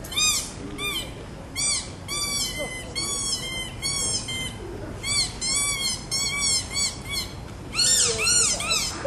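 Bird calling: a rapid series of short squawks that each rise and fall in pitch, several a second, with a short pause near the end.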